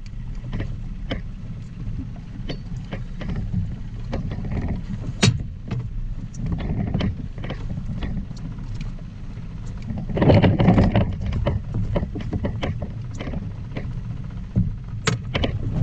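Steady low rumble of water and wind around a small inflatable boat, with scattered clicks and knocks of gear being handled on board and a louder rush of noise lasting about a second, about ten seconds in.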